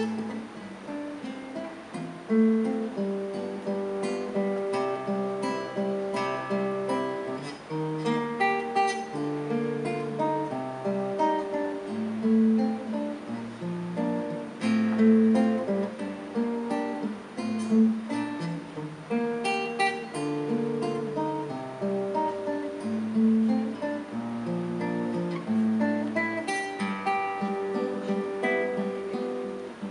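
Solo classical guitar played fingerstyle: a flowing melody of plucked notes over a moving bass line, each note sounding separately and ringing on.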